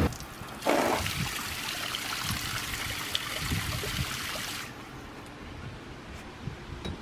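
Garden hose spraying water into a plastic kiddie pool: a steady hiss and splatter of water on water and plastic. It cuts off about two-thirds of the way through.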